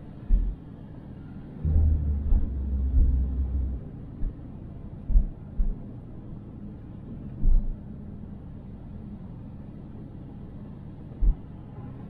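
Low road rumble of a car driving, with irregular deep thumps a few times and a heavier stretch of rumbling about two seconds in.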